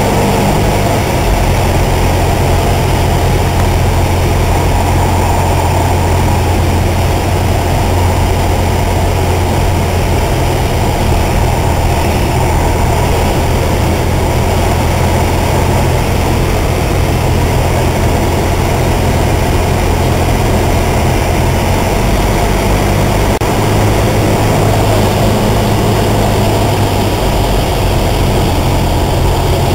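Light propeller airplane's piston engine and propeller in flight, heard inside the cabin as a loud, steady drone with a low hum. The hum shifts slightly in pitch about two-thirds of the way through.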